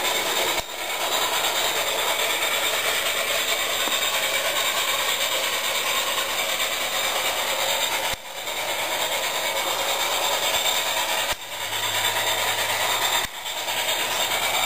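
Garden-scale model train running along its track: a steady whirr and rattle of the electric locomotive's motor, gears and wheels on the rails. It dips briefly a few times, and a low hum comes in near the end.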